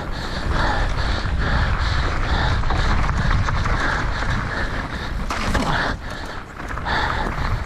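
A mountain biker panting hard while racing downhill, about two breaths a second, over steady wind rumble on the action camera's microphone and the clatter of the bike over rough ground. The hard breathing is the sign of a flat-out race effort.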